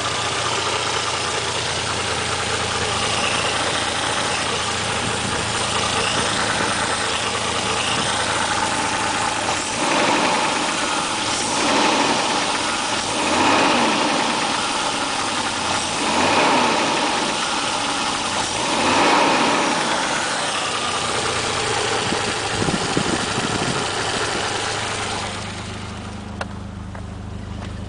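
Toyota 1JZ-GTE twin-turbo straight-six running, with a knock the owner takes for rod knock, blamed on low oil pressure from a weak original oil pump. Around the middle it is revved briefly about five times, and near the end the sound drops in level.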